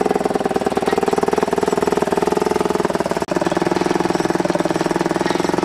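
Small engine running steadily with a fast, even pulse, driving the steel rollers of a sugarcane juice crusher as cane is fed through.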